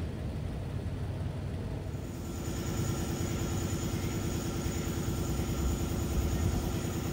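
Range Rover V8 engine idling through a muffler-deleted exhaust: a low, steady rumble. About two seconds in the sound changes abruptly to a brighter mechanical drone with an even pulsing and added hiss.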